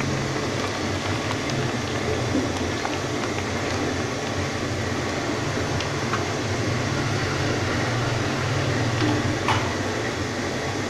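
Steady hum and hiss from the stove burner and the wok of water heating beneath a steaming pan, with a few faint clicks.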